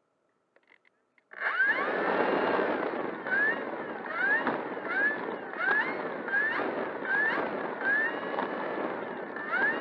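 Near silence, then about a second in the brushless electric motor and propeller of an E-flite Air Tractor RC plane start running, with a rough rumble as the plane rolls on pavement. The motor's whine rises in short glides about every three quarters of a second.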